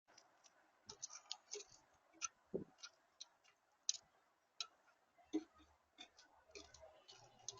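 Birds at a feeder: irregular short, sharp clicks and taps, a few a second, with a few soft low thumps.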